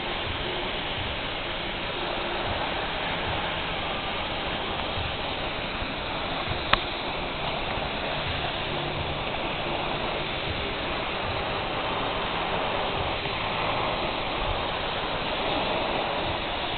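TIG welding arc on a tube, a steady hiss, with one sharp click about seven seconds in.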